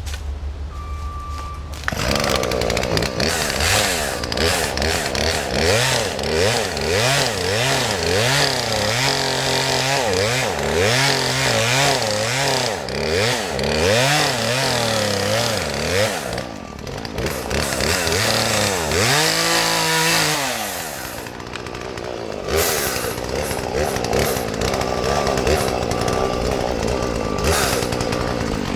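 Chainsaw cutting wood, ripping down the seam where a dead tree and a live one have grown together. The engine pitch rises and falls as the chain bites. It starts about two seconds in, winds down around twenty seconds, then revs up again and keeps cutting.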